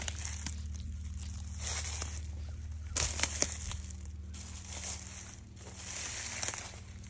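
Rustling and crinkling close to the microphone, coming and going in short spells, with a few sharp clicks about three seconds in.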